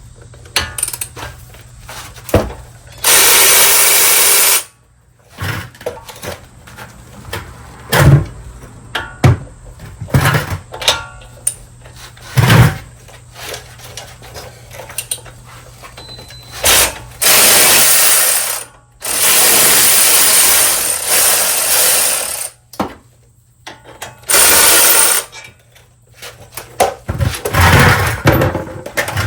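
Handheld power tool run in several bursts on the brake caliper bolts of a truck's front wheel, each lasting one to three seconds, the longest a little after the middle. Clinks and knocks of tools and metal parts fall between the bursts.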